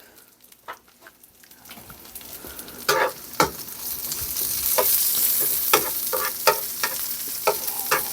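Chopped onion sizzling in hot oil in a pan, the sizzle swelling up a few seconds in and then holding steady. A spatula scrapes and knocks against the pan about once a second.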